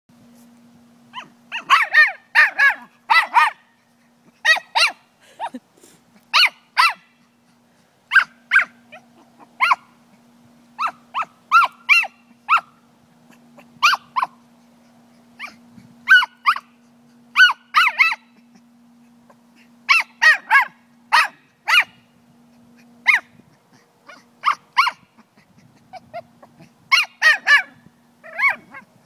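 Small Brussels Griffon barking in short, high yaps, in quick runs of two to four repeated every second or two: excited play barking at a football.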